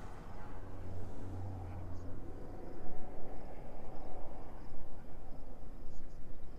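Low engine hum of the idling chase vehicle for the first two seconds or so, over rough, fluctuating outdoor noise, with faint insect chirps.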